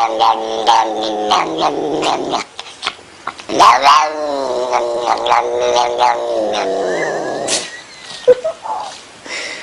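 Domestic cat caterwauling: long, drawn-out yowls with a wavering, sliding pitch. One yowl trails off about two seconds in, and after a short pause a longer one runs for about four seconds before it falls away.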